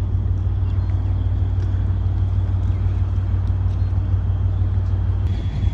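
Steady low engine drone, an even hum with noise over it and no change in pitch.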